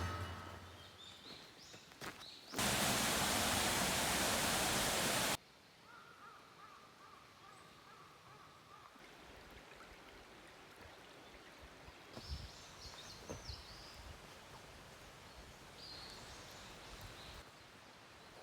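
A steady rushing noise for about three seconds, cutting in and out sharply, then quiet forest air with faint, brief bird chirps.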